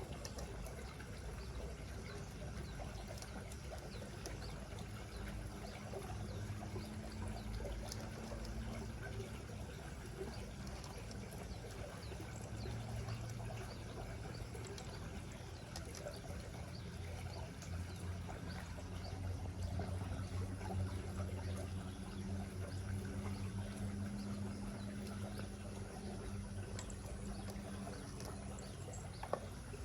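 River water rushing steadily, with a low hum rising and falling underneath and one sharp click near the end.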